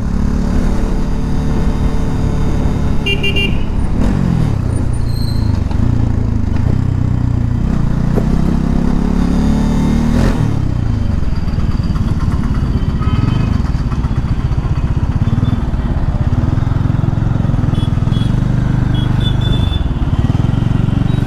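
Bajaj Dominar 400's single-cylinder engine running under the rider while the motorcycle moves through city traffic, its pitch falling and rising several times as it slows and picks up speed. A few short horn toots from other traffic come in now and then.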